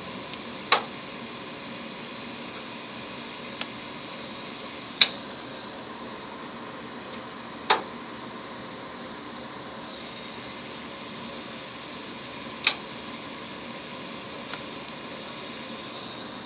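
Hard drive spindle motor spinning its platter, a steady high whine over a hiss. Four sharp clicks stand out, a few seconds apart.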